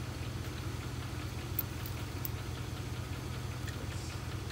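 Tractor engine idling steadily with a low, even running note, with a few faint clinks from a tow chain being handled.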